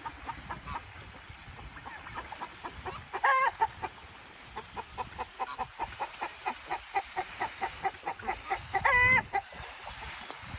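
Bird clucking: a steady run of short clucking notes, about three a second, broken by two louder, drawn-out calls about three seconds in and near the end.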